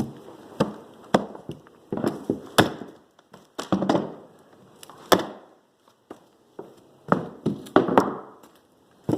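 Mallet striking a manual hardwood flooring nailer, driving nails into floorboards: a run of sharp wooden knocks, several in quick succession, then a pause, then another group.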